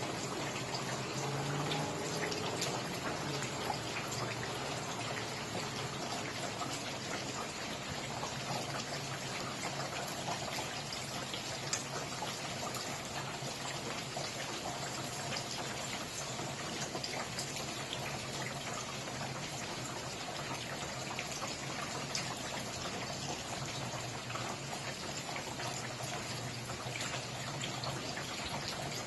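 Steady rain falling, a constant wash of noise dotted with many small, sharp drop impacts.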